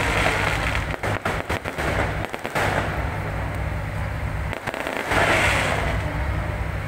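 Aerial fireworks bursting overhead: an irregular string of sharp bangs and crackles.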